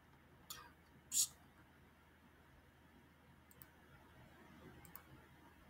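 A few faint computer mouse clicks in the second half, after a brief soft hiss-like noise about a second in; otherwise very quiet.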